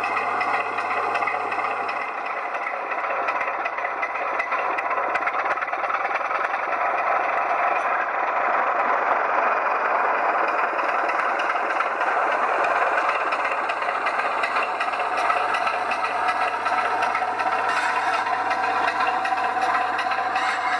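00 gauge DCC model diesel locomotive running, its sound decoder playing a steady diesel engine sound through the model's small speaker, growing a little louder about halfway through.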